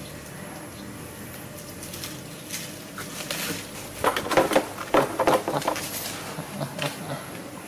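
Leaves and plant stems rustling and brushing in a quick run of loud scuffs about four seconds in, lasting about two seconds, with fainter scuffs after.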